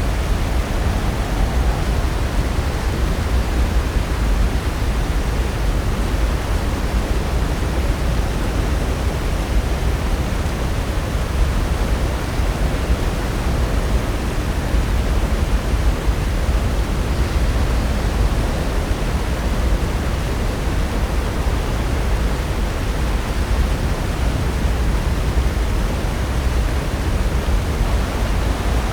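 Pacific Ocean surf breaking on the shore, a steady, even rush of noise with a deep low rumble and no separate wave crashes standing out.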